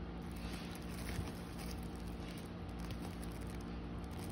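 A screwdriver pressing an electrical wire down into a plastic splice connector makes a few faint clicks and scrapes over a steady low hum.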